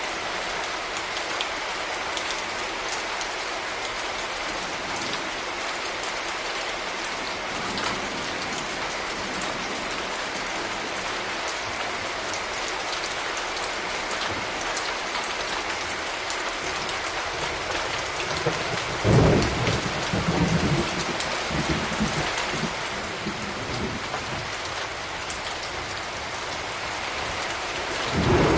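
Steady rain falling, with a loud low rumble of thunder about two-thirds of the way through that fades over a few seconds, and another starting right at the end.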